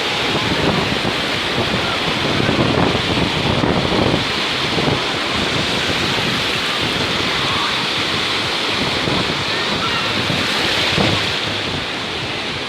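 Black Sea surf washing onto the beach in a steady rush of waves, with wind blowing across the microphone.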